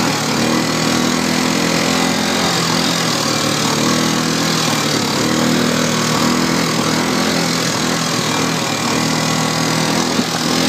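ATV engine running steadily while the quad is under way, its note holding even, with a constant rushing noise over it.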